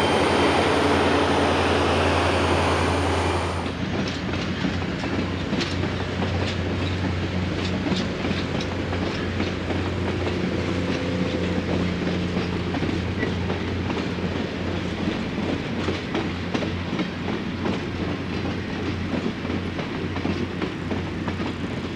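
Passenger train cars rolling past close by, a loud steady rush of wheels on rail that drops off sharply about four seconds in. After that, a quieter steady low diesel hum with scattered clicks of wheels over rail joints as a train moves slowly through the yard.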